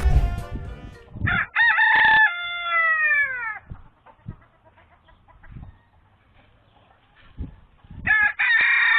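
A rooster crowing twice. The first crow comes about a second in and trails off with a falling pitch. A second crow starts near the end. A low thump sounds right at the start.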